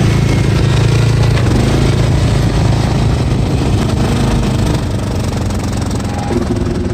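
Cub Cadet XT1 lawn tractor running with its three-stage snow blower attachment engaged. The steady low engine drone weakens and turns rougher about a second and a half in.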